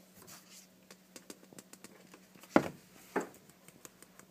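A sieve full of flour being tapped to sift it: two sharp knocks about half a second apart, after a soft brushing rustle of flour moving in the mesh.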